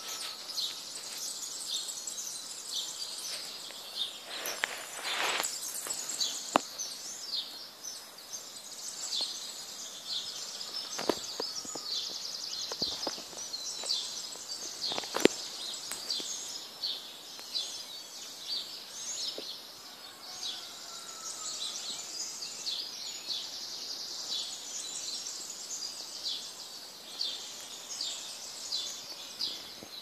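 Morning chorus of many small birds chirping and twittering together, high-pitched and continuous. A few sharp clicks cut through it, the loudest about halfway through.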